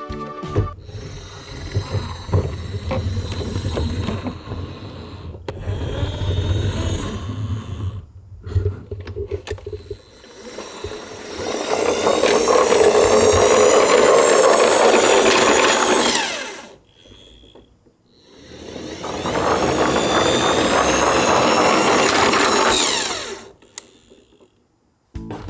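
Large plastic toy garbage truck whirring as it rolls down a wooden ramp, in two long runs of about five seconds each with a short pause between. Before that, a lower rumbling as the truck is handled and pushed.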